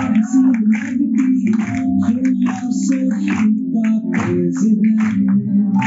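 Dance music with a strong beat and a heavy, steady bass.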